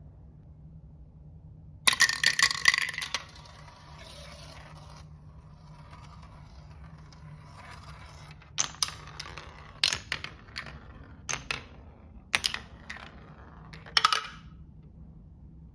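Marbles on a HABA wooden marble run: a loud burst of clattering about two seconds in, then a softer stretch of rolling, then a string of sharp separate clacks as they knock along and drop through the track pieces.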